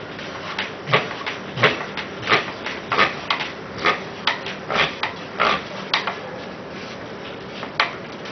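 Hand-cranked meat grinder grinding cured silicone rubber into crumbs: a run of short clicking scrapes, roughly two a second, that stops about six seconds in, with one more near the end.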